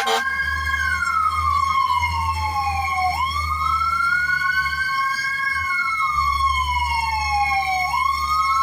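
Fire truck siren in a slow wail, its pitch sweeping up and down about every five seconds, over a steady high tone and a low engine rumble.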